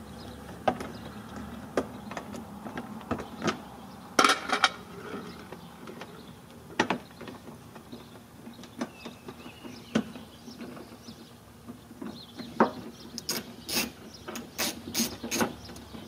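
Small hand ratchet clicking in scattered strokes and short runs as it unscrews the bolts holding a plastic fender liner to the bumper, with a quicker run of clicks near the end.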